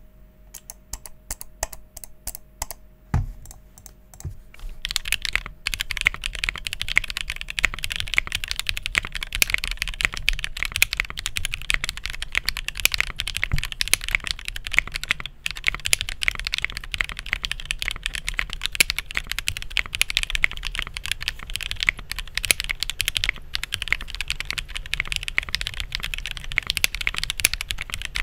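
Plateless Tofu65 mechanical keyboard with Tangerine linear switches and PBT keycaps being typed on. A few scattered keystrokes and one louder knock come in the first few seconds. From about five seconds in there is steady, fast typing.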